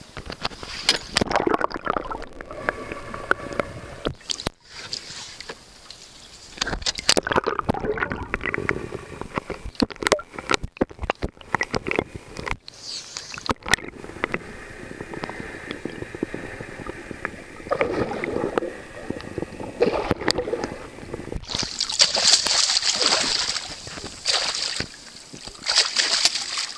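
Water splashing and sloshing beside an aluminium boat, loudest in the last few seconds as a northern pike thrashes at the surface by the hull.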